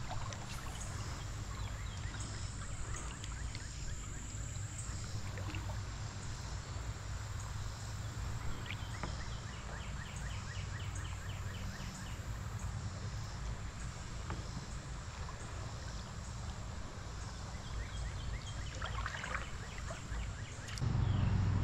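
Outdoor creek ambience: a steady low rumble with water noise, and a run of faint, evenly spaced chirps or ticks about halfway through. The low rumble grows louder about a second before the end.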